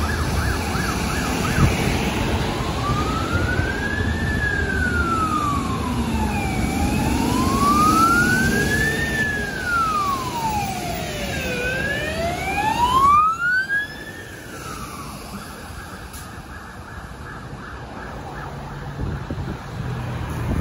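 Fire engine siren, first a brief fast yelp, then a slow wail rising and falling about every five seconds. The wail cuts off about fifteen seconds in, leaving traffic and tyre noise on a wet road.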